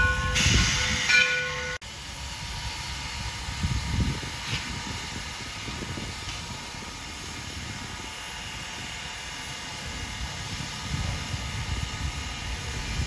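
Steam locomotive No. 60's whistle sounding a chord of steady tones in the first two seconds, cut off abruptly. Then a steady hiss of steam escaping around the cylinders as the locomotive stands.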